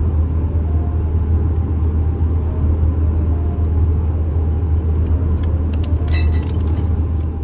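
Steady low rumble of a moving car heard from inside the cabin, road and engine noise, with a few light clicks about five to six seconds in.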